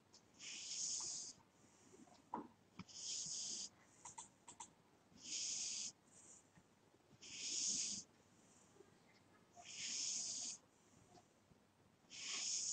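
A sleeping cat snoring: six hissy breaths, high in pitch and each just under a second long, come about every two and a half seconds, with a fainter breath between some of them.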